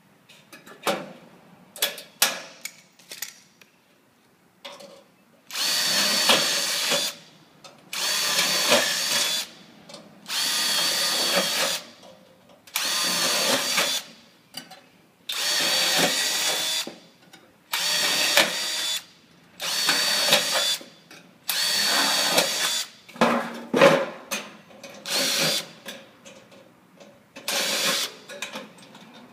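Cordless impact driver driving screws into a sheet-metal gutter in about ten short bursts of a second or so each, a couple of seconds apart. A few light clicks come first.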